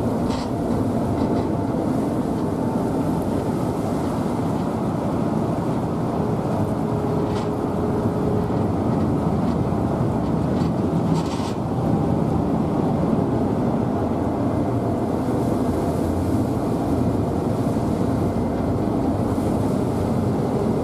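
Passenger ferry Queen Bouze under way, heard on board: a steady, even drone of engines and rushing water.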